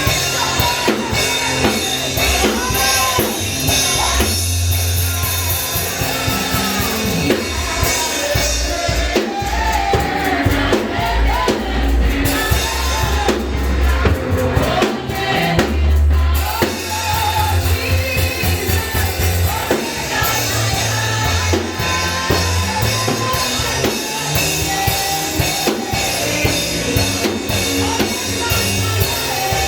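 Upbeat praise music with a drum kit, a heavy bass line and voices singing.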